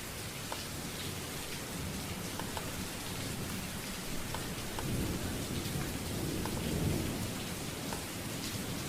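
Recorded rain ambience with thunder, looping as the white-noise track of an app: steady rain with scattered drop ticks. Low rumbles of thunder swell about five seconds in and again near seven seconds.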